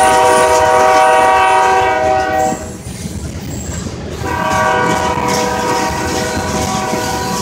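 Locomotive air horn sounding a long, steady chord that breaks off about two and a half seconds in and starts again a second and a half later. Underneath it the freight cars rumble and clatter as they roll past.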